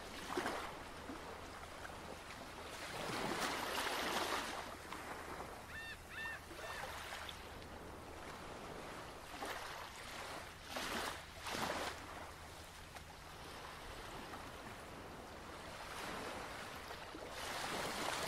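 Ocean surf washing in repeated swells, with a short bird call of a few quick notes about six seconds in.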